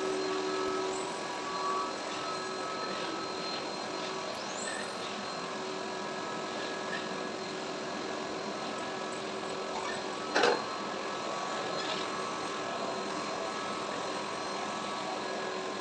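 AGARO ICON 1600 W bagless cyclonic vacuum cleaner running steadily, a hiss with a few faint steady tones in it. A short knock comes about ten seconds in.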